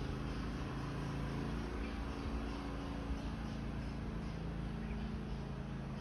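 Outdoor ambience: faint, repeated high chirping over a steady low rumble.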